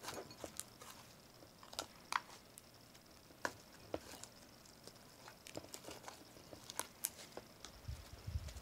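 Slime mixed with shaving cream being squished and stretched by hand in a glass bowl: faint, scattered sticky clicks and pops.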